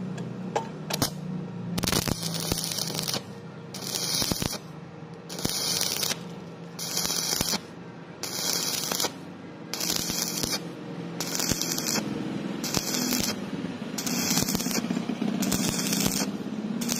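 Stick welding arc from an E6013 electrode on thin steel tubing, crackling and hissing in short bursts of under a second. The arc is struck and broken about once every second and a bit, the stop-start way of bridging a wide gap on thin metal without burning through.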